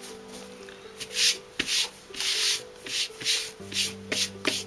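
Plastic bag crinkling and rustling in irregular bursts, starting about a second in, as something is handled inside it.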